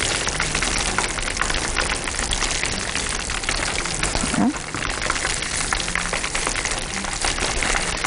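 Breaded chicken wings deep-frying in hot oil: a steady, dense sizzle full of fine crackles.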